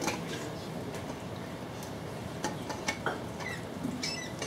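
Steady room noise with a few light clicks and taps scattered through it, a cluster of them about two and a half to three seconds in and another near the end.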